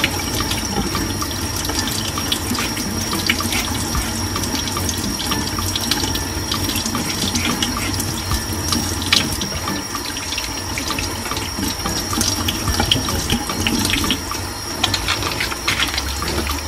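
Tap water running steadily into a stainless steel sink, with scattered small clicks and ticks as green bananas are peeled by hand and knife under the stream.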